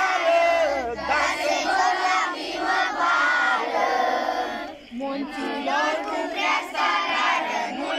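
Children's choir singing a song together in unison, with a short break for breath about five seconds in.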